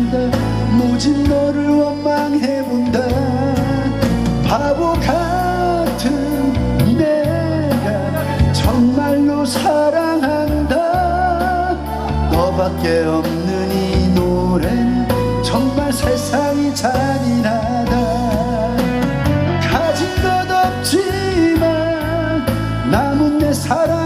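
A man singing a ballad with vibrato into a microphone, amplified through a PA, over instrumental backing music.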